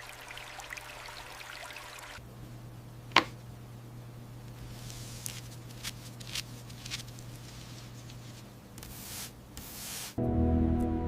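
Water trickling with small drips, then a low steady hum with a sharp click about three seconds in and a few lighter clicks and swishes. Soft music comes in just before the end.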